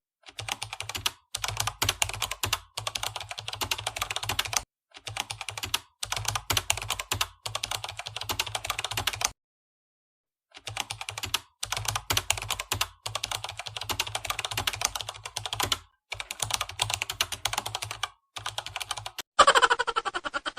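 Rapid computer-keyboard typing clicks in bursts of one to two seconds, broken by clean silent gaps. About a second before the end comes a brief, louder sweep of noise.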